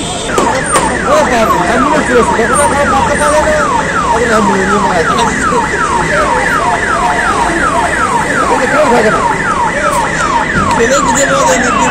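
Police vehicle's electronic siren sounding a fast repeating falling wail, about three sweeps a second. It starts almost at once and cuts off near the end.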